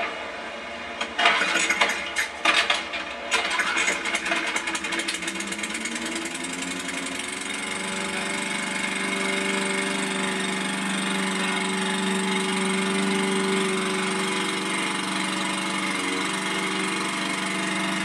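Gas walk-behind lawnmower engine catching with irregular sputters and knocks in the first few seconds, then rising in pitch over several seconds to a steady run.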